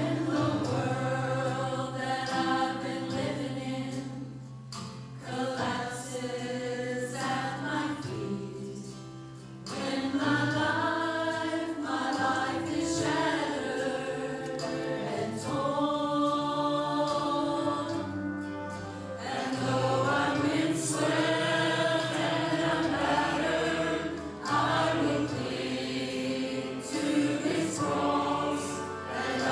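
Mixed adult church choir singing a cantata piece in phrases, with steady held low accompaniment notes beneath the voices.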